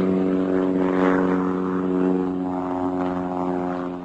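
Propeller-driven light observation plane's piston engine running at a steady pitch overhead, cutting off suddenly at the end.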